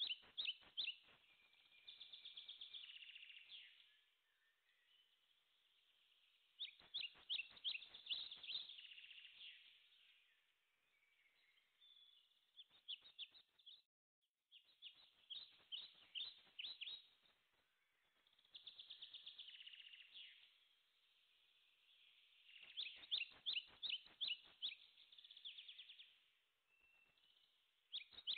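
Small songbird singing in repeated phrases of rapid, high trilled notes, with pauses of a second or two between phrases.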